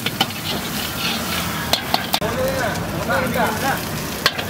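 Food sizzling steadily in a large wok while a long-handled metal ladle stirs and tosses it, with a few sharp clanks of the ladle against the wok, about four in all.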